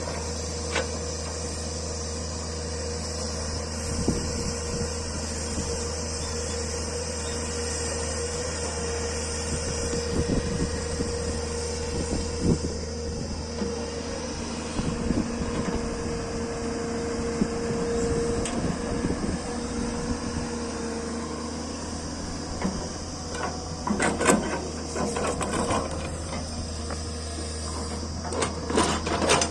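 JCB backhoe loader's diesel engine running steadily, with irregular clanks and knocks that come thicker near the end.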